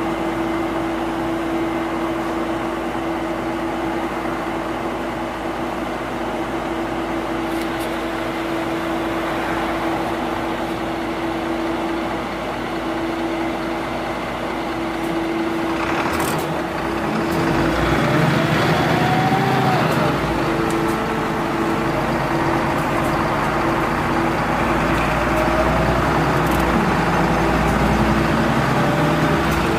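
Mitsubishi Fuso QKG-MP38FK city bus's diesel engine running with a steady note. About halfway through there is a sudden noise, then the engine note rises and falls and stays a little louder.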